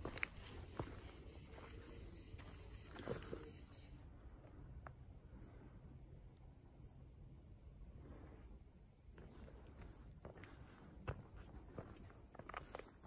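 Faint crickets chirping in meadow grass. At first there is a dense, fast high trill, and from about four seconds in a single high chirp repeats about twice a second at one steady pitch. Footsteps crunch on a stony gravel path in the first few seconds and again near the end.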